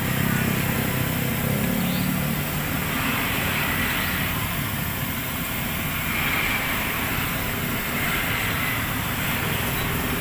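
Batter-coated banana fritter (pisang goreng) sizzling steadily in hot oil in an aluminium wok after being lowered in, with a low steady rumble underneath.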